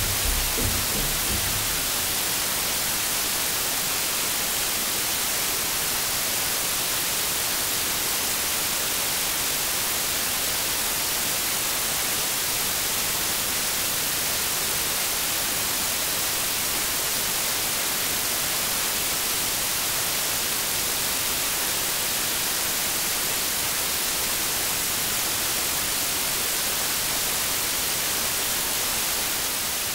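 Steady hiss of TV static, even and unchanging, starting to fade out in the last second.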